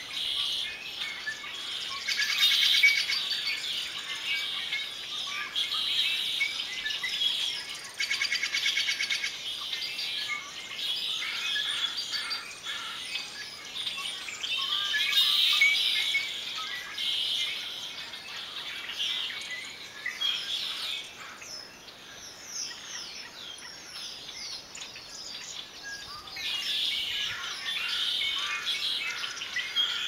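Many birds chirping and twittering at once, their calls overlapping, with a fast trill about two seconds in and again about eight seconds in. The chorus thins out for a few seconds past the middle, then picks up again.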